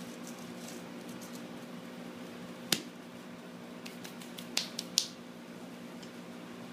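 Sharp clicks and taps from small objects being handled and set down by hand, over a steady low hum. There is one clear click nearly three seconds in, then a quick run of clicks about four to five seconds in.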